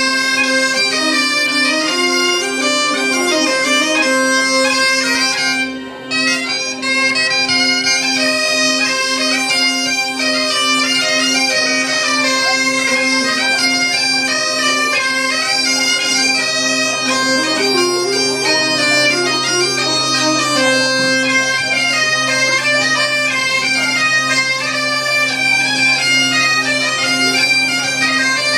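Bagpipes playing a lively dance tune over a steady drone, with a saxophone and a second small wind instrument playing along; a lower held note joins about halfway through.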